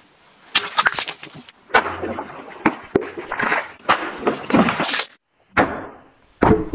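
Wakizashi blade slicing through plastic water bottles full of water: a series of sharp cuts and splashes, with abrupt breaks between them. Near the end it chops through a wooden stick with a hard knock.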